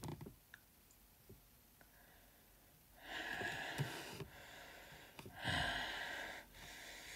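A person breathing loudly and noisily, in two long breaths: one about three seconds in and another about five and a half seconds in.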